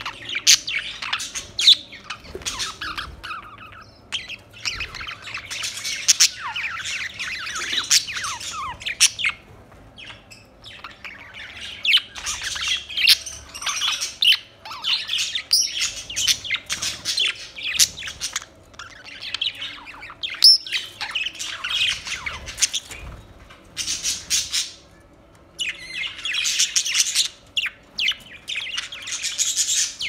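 Budgerigars chattering, with quick chirps, squawks and warbles coming in dense runs broken by short pauses.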